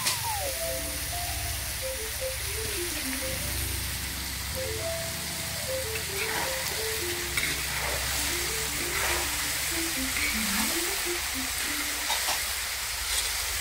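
Diced potatoes and vegetables sizzling as they fry in a black wok over a wood fire, stirred with a ladle, under background music with a stepping melodic tune.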